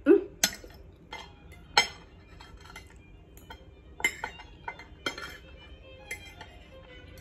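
Steel fork and knife clinking and scraping against a porcelain plate: a string of sharp clinks, the loudest in the first two seconds.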